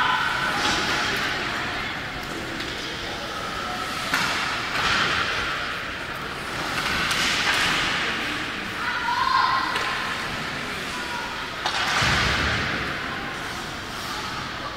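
Ice hockey play on a rink: skates scraping and spraying on the ice in repeated swells of hiss, sharp stick and puck knocks, and a heavy thud against the boards about twelve seconds in, with voices shouting now and then.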